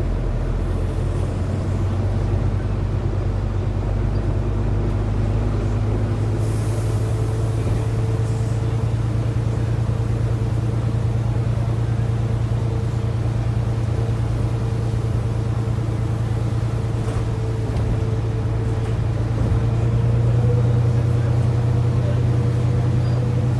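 Interior sound of a Volvo B9TL double-decker bus on the move: its six-cylinder diesel engine drones steadily with road noise. Near the end the engine note rises slightly in pitch and gets a little louder as the bus pulls harder.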